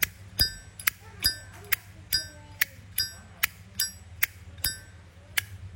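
Zippo lighter lid flicked open and snapped shut over and over, about two and a half sharp metallic clicks a second. Every other click rings with a clear bell-like chime from a lighter whose lid and cam have been tuned for that sound.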